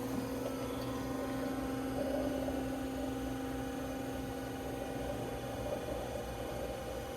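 Amada VM-2500 saw's machinery running with a steady hum while its feed moves the workpiece toward the blade; the blade is not yet cutting.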